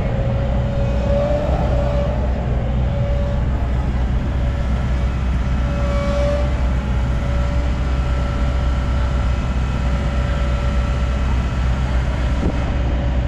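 Tracked excavator running with a steady low engine drone, a wavering higher whine over it as the tiltrotator grapple swings and turns.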